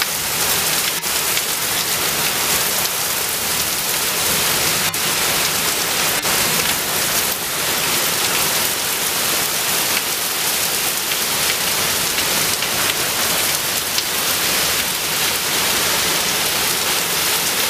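Heavy wind-driven summer storm rain pouring down steadily as a dense, even hiss, with a few sharp ticks.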